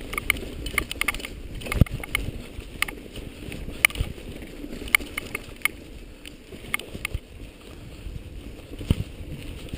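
Rumbling movement noise from a camera being carried along a trail, with about a dozen sharp clicks and knocks at uneven spacing.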